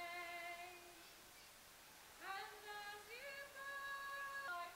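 A singing voice holding long notes, scooping up into a new note about two seconds in and sliding up to a higher note a second later.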